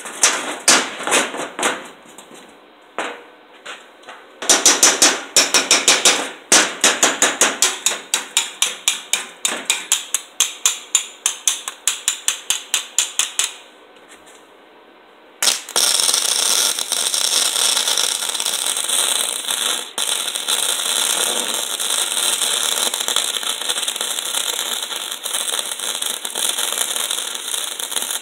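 A hand tool worked against steel in quick regular strokes, about three or four a second, then, from about fifteen seconds in, a MIG welder's arc running a continuous bead with a steady crackling sizzle.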